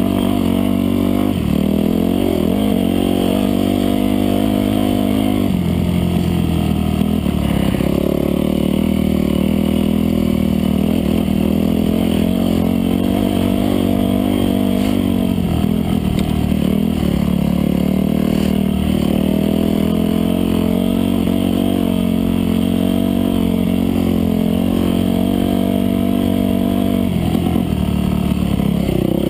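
Off-road dirt bike engine running hard under the rider, its revs climbing and dropping again several times as the throttle is worked along the trail.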